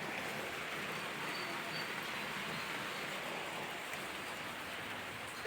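Steady rain falling, an even hiss of many drops with faint scattered pattering.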